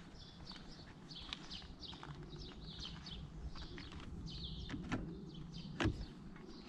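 Birds singing with a steady run of short falling chirps. About five seconds in a click, then a louder sharp clack as the Jaguar I-Pace's flush door handle is pulled and the door unlatches.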